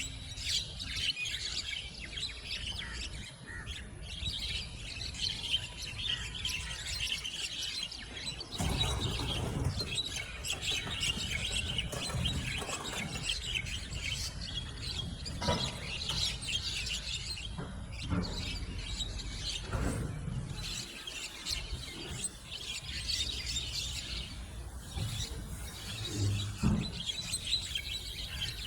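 Javan mynas chattering and squawking continuously in a dense tangle of overlapping calls as they fight. A low rumbling noise joins in from about eight seconds in.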